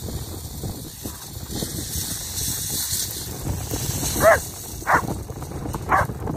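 German Shepherd dog barking three short, sharp times, the first about four seconds in and the others about a second apart. It is excited, lunging for a stick held up for it to fetch.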